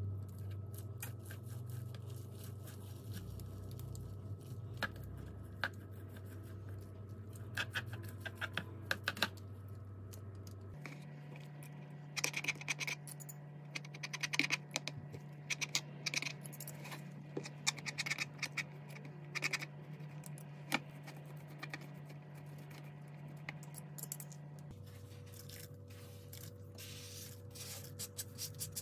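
Metal fork and tongs scraping, scratching and tapping against a plastic cutting board as boiled chicken breast is pulled apart into shreds: a run of irregular small clicks and scrapes over a steady low hum.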